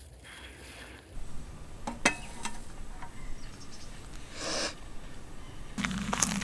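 Light clinks and knocks of camp cookware being handled at a camp table, one clink ringing briefly about two seconds in, and a short hiss at about four and a half seconds.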